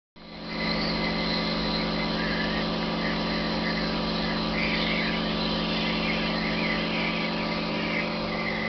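Electric pump motor of a biodiesel final polishing unit running steadily, a constant low hum with a hiss over it, fading in over the first half-second.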